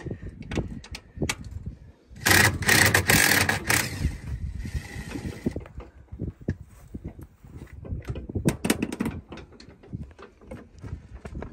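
Scattered clanks and knocks of hand work on a combine's air intake, with a loud rushing, hissing noise about two seconds in that lasts over a second and then fades.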